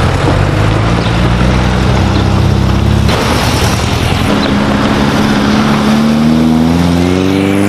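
Classic air-cooled Volkswagen Beetles driving past one after another, their flat-four engines running. In the second half one engine's pitch climbs steadily as it accelerates away.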